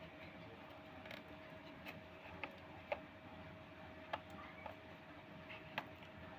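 Irregular light clicks and taps, about seven of them, over a faint steady hum and hiss: handling noise from small objects.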